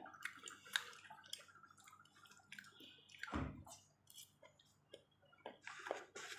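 Close-up chewing and wet mouth sounds of a person eating, with small clicks of a metal fork. About three and a half seconds in comes a low thump, the loudest sound.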